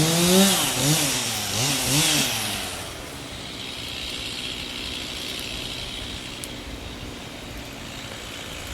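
Chainsaw engine at high revs, blipped up and down three or four times over the first couple of seconds, then dropping back to a quieter idle.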